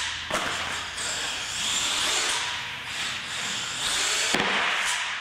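RC monster truck driving hard on a concrete floor: its motor and tyres make a high, rising and falling rushing whine. A sharp knock about a third of a second in as it lands from a jump, and another near the end.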